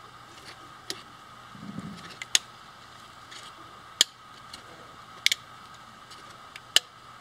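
Sharp clicks and taps of 3D-printed plastic parts knocking and snapping together as they are handled and fitted by hand, about six in all at irregular intervals, over a faint steady hum.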